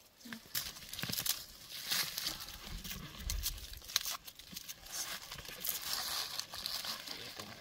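Rustling and crackling of plant stalks and dry fallen leaves as green onions are pulled up by hand from the soil, with scattered small clicks and a low thud about three seconds in.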